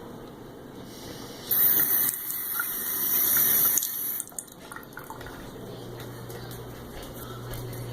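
Bathroom sink tap turned on, water running hard for a few seconds starting about a second and a half in, then shut off.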